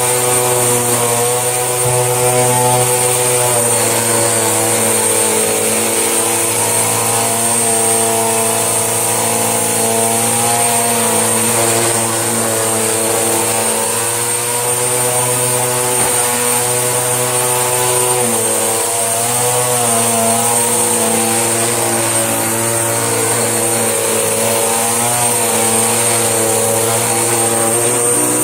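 Panasonic bagged vacuum cleaner running steadily while it picks up a heap of dust and dog hair. Its motor hums with a high, constant whine, and the pitch wavers slightly as the airflow through the floor head changes.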